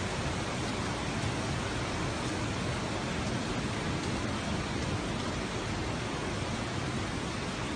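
Steady storm noise of strong wind and heavy rain, an even rushing hiss with no breaks.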